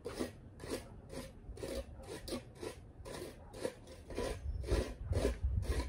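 Snow crunching and scraping in a quick, uneven run of short strokes, about three a second, with a low rumble joining in near the end.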